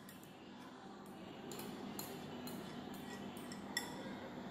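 Faint, light clinks of a metal spoon against a bowl and a glass jar as thick yogurt is scraped onto cornflakes: a string of small taps from about a second and a half in, the sharpest near the end.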